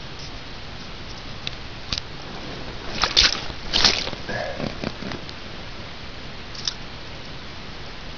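Shallow creek water trickling over gravel. A few brief splashes and clicks come about three to four seconds in.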